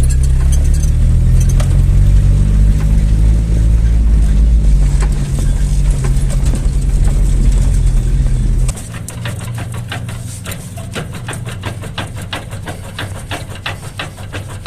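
Car on the move with worn ball joints on its steering center link, heard as knocking over a loud low rumble of driving. After an abrupt cut about nine seconds in, the rumble drops away and a quick, uneven series of sharp clunks and rattles follows.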